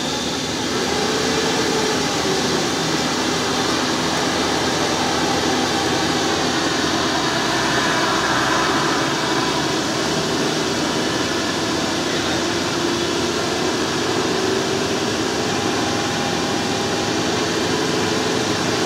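Engines of a coach bus and an SUV labouring through deep mud: a steady drone that wavers slightly in pitch.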